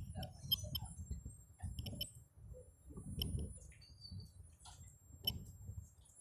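Handling noise from a phone being moved about by hand: scattered faint clicks with soft low thumps and rubbing.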